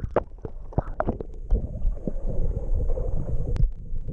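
Choppy sea water sloshing and splashing against a camera held at the surface, with many small sharp splashes over a low rumble of wind on the microphone.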